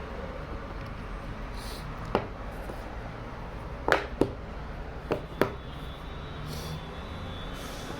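About five sharp clicks and taps from handling a phone and its packaging, two close pairs among them, over a steady low hum.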